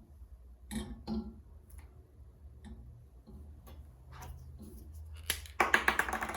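Workshop handling sounds: scattered light knocks and clicks, then a sharp click and a short, fast rattle of clicks near the end.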